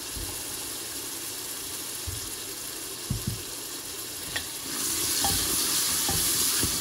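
Chopped tomatoes frying in oil in a pressure cooker, stirred with a wooden spatula. A steady sizzle runs throughout, and the spatula knocks against the pot a few times around the middle. The sizzle grows louder about two-thirds of the way through.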